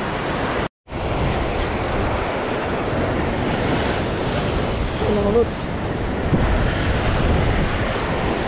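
Sea surf breaking and washing over rocks in a steady loud rush, with wind buffeting the microphone. The sound drops out completely for a moment about a second in.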